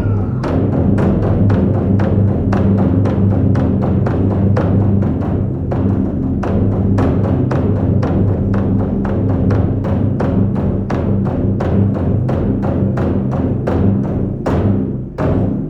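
Japanese taiko drums played in a fast, driving rhythm, several strikes a second, with deep booming drum tones; a final strike near the end rings out and fades.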